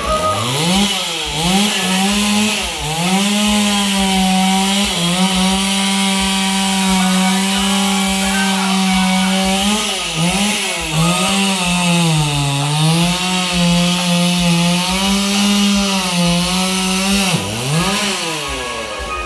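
Chainsaw engine revving up at the start, then held at high speed with several brief dips in pitch, and dropping off near the end.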